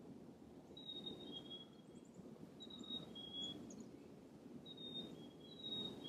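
Black-capped chickadee singing its clear whistled song, a higher note followed by a slightly lower one, repeated about four times. This is the call male chickadees use to call their mates.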